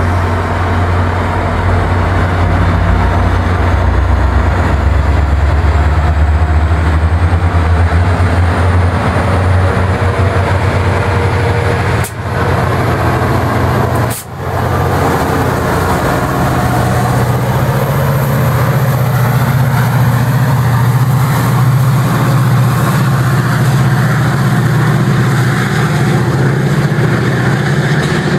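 Metra MP36PH-3S diesel locomotive's engine running at close range, a steady low drone, while the train starts to move. A faint high whine rises in pitch over the first several seconds. The sound drops out briefly twice, about 12 and 14 seconds in.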